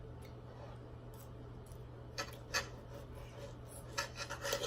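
A few faint clicks and scrapes of cutlery against a plate while eating steak, over a steady low hum.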